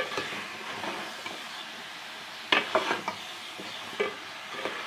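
A spoon stirring diced potatoes into minced meat and peas frying in ghee in a pot, over a steady sizzle. A few sharp scrapes against the pot come at the start, about two and a half seconds in, and again near the end.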